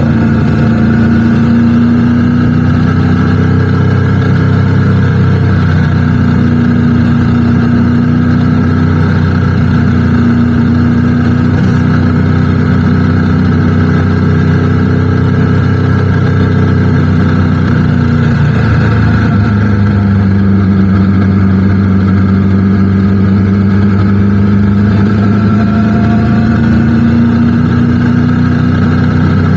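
Motorcycle engine running under way at a steady cruise. Its pitch drops about two-thirds of the way through, then slowly climbs back up.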